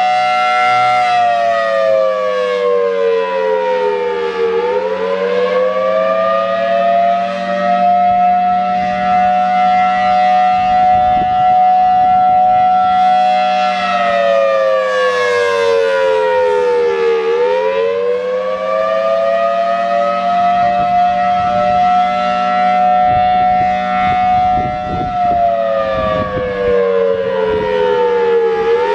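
Federal Signal Thunderbolt 1003A (B-series) warning siren sounding the attack signal: a loud, steady siren tone whose pitch sags and climbs back up three times, roughly every 13 seconds, over a steady low hum.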